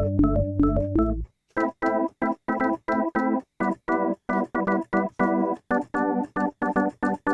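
Kurzweil K2000 synthesizer factory programs played dry, with no effects: an organ-like patch with a walking bass under chords stops about a second in. After a brief gap, another keyboard patch comes in, played as short, detached chords at about three to four a second.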